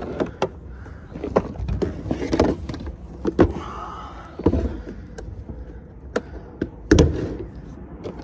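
Irregular knocks, taps and clatter of hands and tools working on a bass boat's fuel tank.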